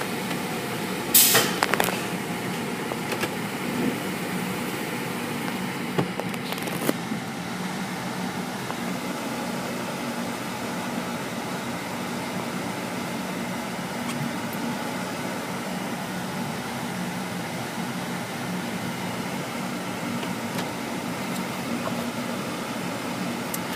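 Steady mechanical hum of a tunnel car wash's machinery, heard from inside a waiting car. A sharp clack comes about a second in, and a couple of lighter clicks follow around six to seven seconds in.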